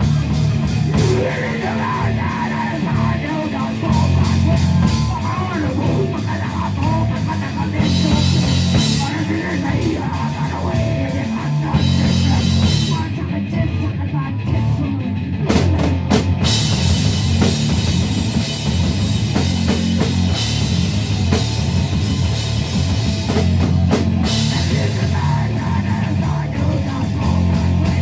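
A live heavy rock band: distorted electric guitars, bass guitar and drum kit playing a loud, heavy song. About halfway through, the cymbals drop out for a few seconds, then the full band hits back in.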